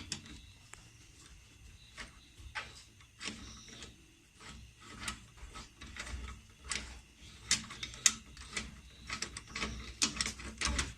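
Ratchet wrench with a long socket clicking in short, irregular runs while undoing the 14 mm bolts that hold a rear wheel hub assembly, the clicks coming faster in the second half.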